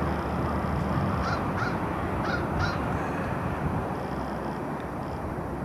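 Airbus A319 jet engines rumbling steadily as the airliner rolls along the runway, with a crow cawing four short times between about one and three seconds in.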